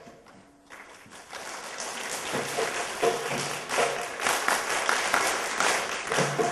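A brief lull, then audience applause swelling from about a second in and continuing, with faint drum notes underneath.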